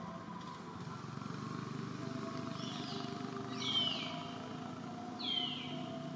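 Two short, high calls that sweep downward in pitch, about a second and a half apart, over a steady low motor hum.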